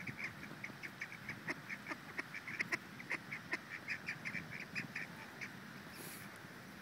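Ducks calling in a rapid run of short, high calls, about six a second, that stops about five and a half seconds in.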